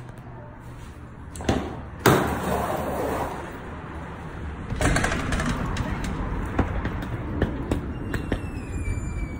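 A glass door's push bar clunks and the door swings open about two seconds in, letting in steady outdoor traffic noise, followed by scattered footsteps and clicks. A faint falling squeal near the end.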